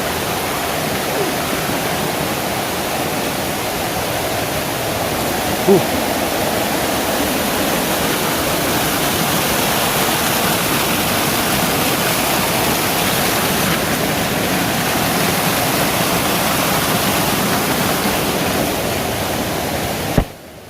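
Waterfall, a steady rush of falling water close by, with a brief sharp knock about six seconds in.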